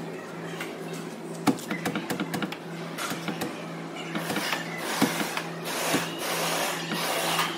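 Aerosol spray can hissing in several short bursts as it is sprayed around a car door's hinges and latch, after a run of sharp clicks about a second and a half in. A steady low hum runs underneath.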